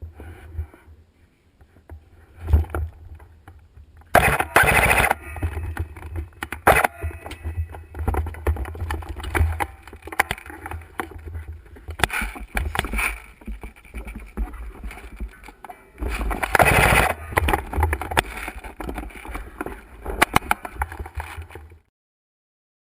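Wind rumble and handling noise on a rifle-mounted action camera, with scattered clicks and knocks and two louder stretches of noise about four and sixteen seconds in. The sound cuts off suddenly near the end.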